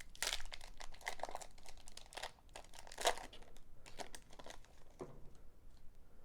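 Pokémon trading-card booster pack's foil wrapper crinkling and tearing as it is opened by hand: a run of crackles, the loudest about three seconds in, thinning out to a few faint ticks after about three and a half seconds.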